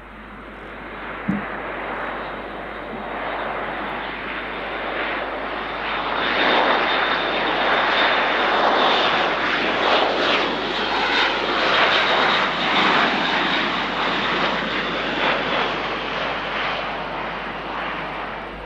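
Airbus A400M Atlas turboprop transport flying past low, its four turboprop engines and propellers heard as a broad engine sound. It grows louder over the first few seconds, is loudest through the middle with a steady high whine on top, then eases off near the end.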